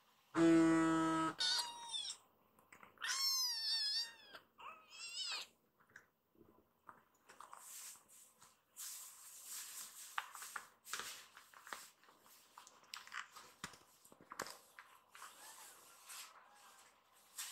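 A short, loud buzzy tone about a second long opens, followed by a kitten's three short high meows. After that come soft scratches and rustles of the kitten's claws on trouser fabric as it climbs onto a lap.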